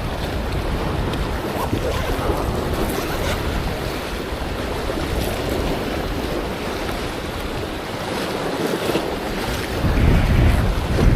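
Strong wind buffeting the microphone, with waves washing on the shore underneath. A louder gust comes near the end.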